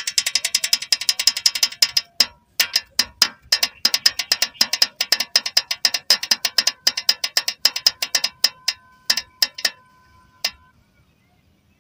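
Plastic HMT toy tractor clicking rapidly as it is pushed along, like a ratchet turning with the wheels. The clicks come fast at first, then space out and stop as the tractor comes to rest about ten seconds in.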